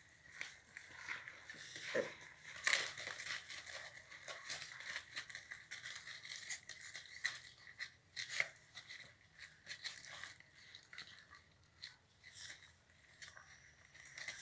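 Two pitbull puppies wrestling on a gritty concrete floor: irregular scuffs, scrapes and small clicks of paws and claws, with a few louder scrapes in the first half and a quieter stretch near the end.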